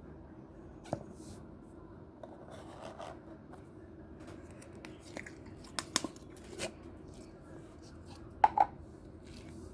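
Clear slime being squished and pressed by hand, giving scattered sharp pops and clicks, the loudest two close together near the end, over a steady low background hum.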